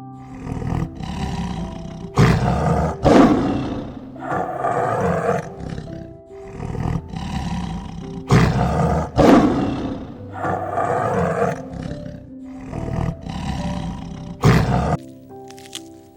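Big cat roaring and growling in a series of harsh, loud calls about every second or two, over soft background music.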